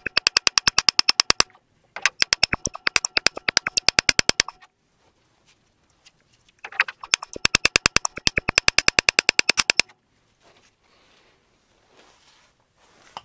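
Small hand hammer tapping lightly and rapidly on a new ball joint to drive it straight into its housing, metal on metal with a ringing tone. The taps come in three quick runs of about eight a second, with pauses between them; the last run stops after about ten seconds.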